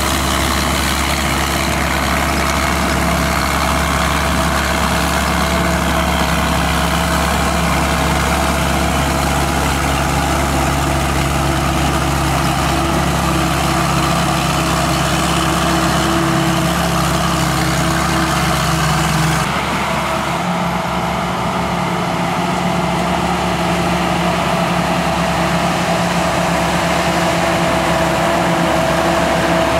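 SAK KM-D combine harvester running steadily: its 260-horsepower turbocharged engine and machinery make a constant drone with several steady tones. About two-thirds of the way through, the deep rumble and the hiss drop away suddenly while the machine keeps running.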